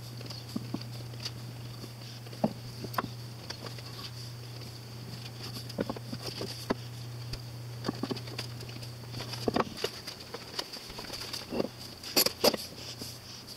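Glued wormy maple strips being handled and laid together on a workbench between pipe clamps: scattered light knocks and taps of wood on wood, with two louder knocks near the end. A steady low hum fades out about two-thirds of the way through.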